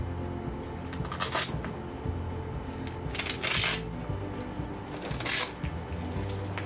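Background music with steady low notes, overlaid by three short rustling noises as a cat's harness and leash are handled.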